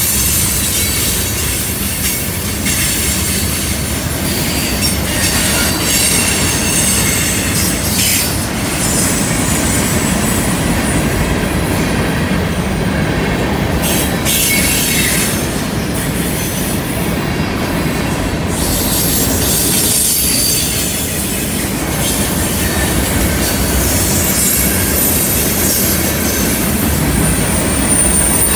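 Freight train cars — mostly tank cars — rolling past on a curve with a steady rumble. Their wheels squeal in thin, high tones against the curved rail, most clearly near the start and again near the end, with a few sharp clacks in between.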